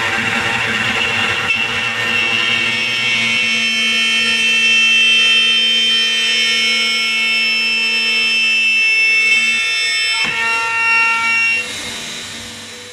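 4-axis CNC router spindle running with a steady high-pitched whine as its bit cuts a curved wooden chair back. A brief sharp knock about ten seconds in, and the sound drops and fades out near the end.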